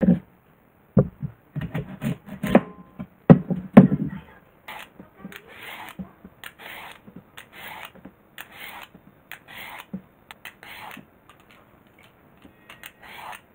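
A few sharp knocks of a knife on a wooden cutting board, then a daikon radish peeled in long strips: a run of scraping swishes, roughly one every half second to second.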